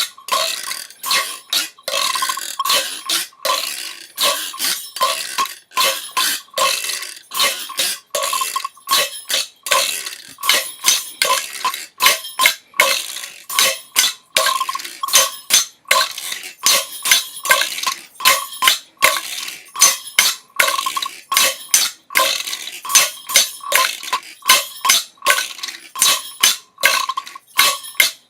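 A person breathing fast and hard, panting in quick rhythmic breaths about three a second, each a short rush of air.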